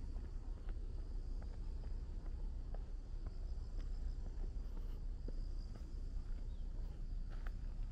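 Insects chirring in a steady high band that pulses in short runs, over a low steady rumble, with scattered faint ticks.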